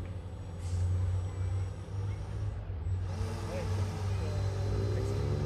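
Radio-controlled model boats running on a pond, their motors making a steady low hum.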